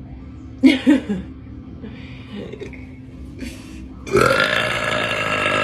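A woman burping: two short, loud burps in quick succession just under a second in, then a long, drawn-out burp starting about four seconds in.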